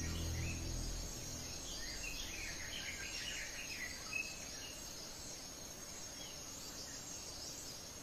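Faint tropical forest ambience: a steady high insect drone with scattered short bird chirps, most of them in the first few seconds. Background music fades out at the start.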